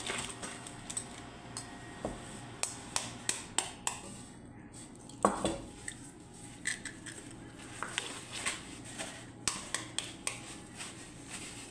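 Eggs being cracked open with a metal spoon over a ceramic bowl: a run of sharp, irregular clicks and taps of spoon on shell and bowl. The loudest tap comes about five seconds in and rings briefly.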